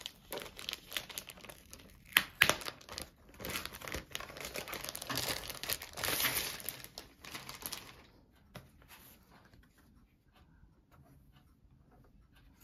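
Thin plastic packaging film crinkling and crackling as a laptop is slid out of it, with a few sharp crackles about two seconds in. It dies down about eight seconds in, leaving only faint handling ticks.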